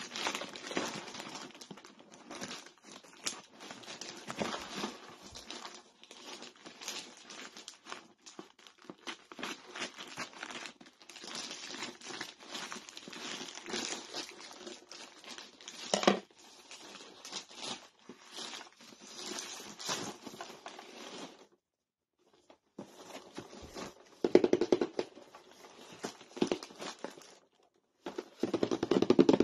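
Plastic mailer bag crinkling and rustling as it is cut open with scissors and torn apart. Near the end, louder bumps and taps of a cardboard toy box being handled.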